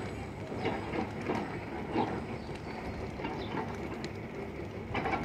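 Bush fire burning through dry grass and brush, crackling with irregular sharp pops over a steady rumble; the loudest snap comes near the end.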